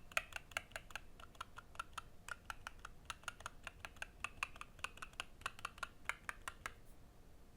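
Fast typing on a custom 60% mechanical keyboard with Gateron Magnetic Green Dragon linear switches and PBT keycaps, in a foam-dampened case with a brass weight: a quick run of crisp keystrokes, several a second, that stops near the end.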